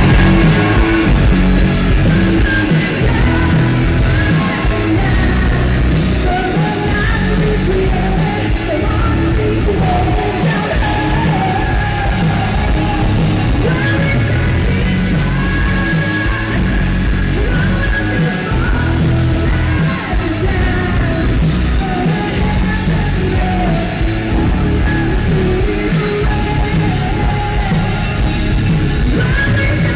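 Symphonic metal band playing live, loud and steady, with distorted electric guitars, bass, keyboards and drums under a female lead singer. It is heard as a phone recording from within the crowd.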